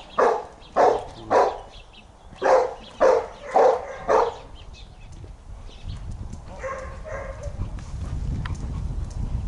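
A dog barking: seven sharp barks about two a second, in a run of three and then a run of four, over the first four seconds.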